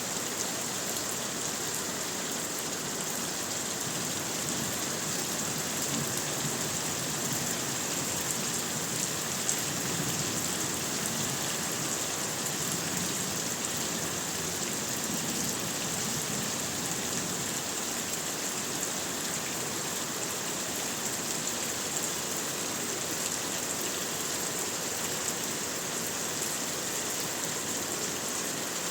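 Heavy rain falling steadily, a dense even hiss of drops with fine individual drop ticks throughout.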